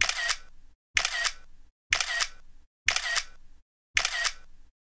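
Camera shutter clicking five times, about once a second, each a quick double click with a short fading tail.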